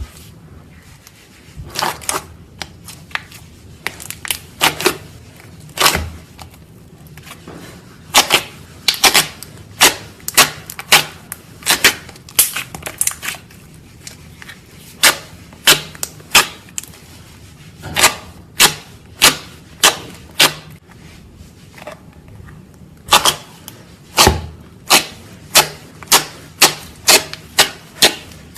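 Slime being pressed and worked by hand, giving off a long run of sharp pops and clicks, irregular but about one or two a second, with a brief pause about three quarters of the way through.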